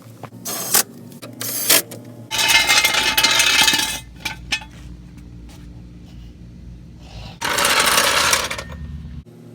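Hands working on the car: a few sharp clicks and knocks, then two bursts of rubbing or scraping, each about a second and a half long.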